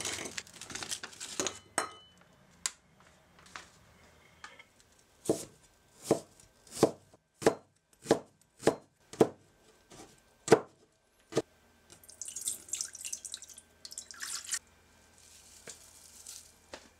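Kitchen knife chopping green onion and onion on a wooden cutting board: about ten sharp, even chops, a little over one a second, in the middle of the stretch. It opens with a plastic pouch crinkling and ends with two stretches of high hissing rustle.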